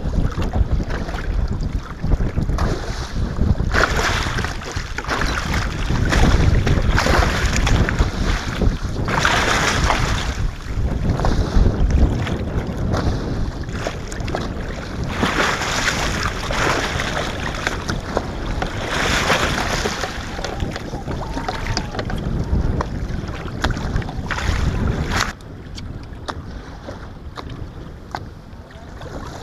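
Wind buffeting the microphone over waves splashing against the side of a fishing boat, rising and falling in gusts every few seconds and dropping quieter near the end.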